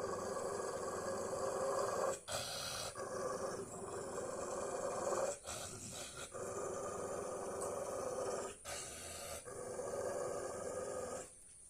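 Dog growling in long, rough stretches, broken by short pauses every few seconds, and stopping shortly before the end.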